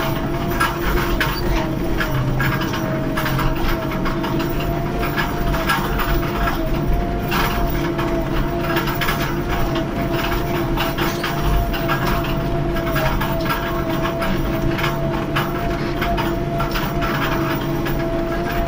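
New Holland TD110 tractor's diesel engine running steadily under load while pulling a cultivator, heard from inside the cab. A steady hum runs throughout with constant rattling.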